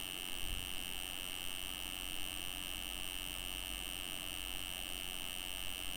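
A steady high-pitched electronic tone, unchanging in pitch and level, with a faint low hum beneath it.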